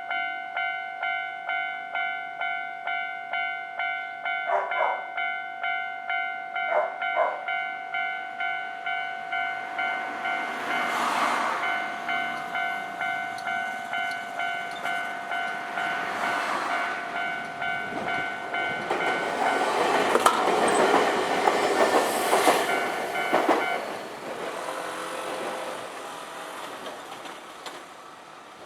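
Japanese level-crossing warning bell ringing steadily, about two strokes a second, with short train-horn toots around five and seven seconds in. A Nankai Kada Line train then passes over the crossing with wheel clatter and rushing noise. The bell stops as the train clears, and the train's sound fades away.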